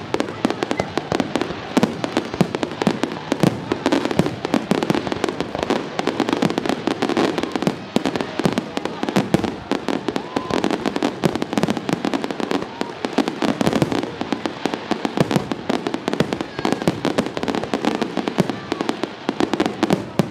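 Aerial fireworks shells bursting in a dense, continuous barrage: rapid overlapping bangs and crackles with no let-up.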